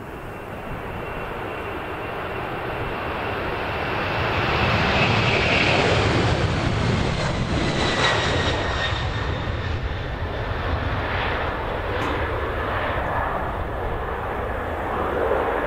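Boeing 767-300ER's twin turbofan engines at take-off thrust as the jet rolls past, rotates and lifts off. A loud, steady rumble with a high engine whine on top swells to its peak about five to eight seconds in. The whine drops slightly in pitch as the aircraft passes.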